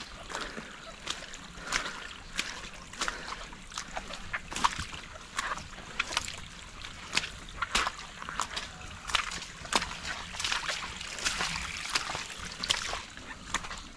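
Footsteps on a wet, muddy trail: irregular squelching and splashing steps, about one to two a second.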